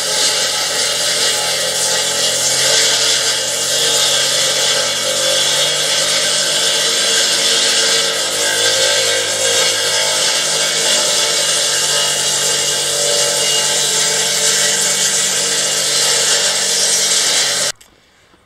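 Solar-powered electric sawmill running and cutting through a wooden board, a steady loud motor hum with a hissing cut. It cuts off suddenly near the end.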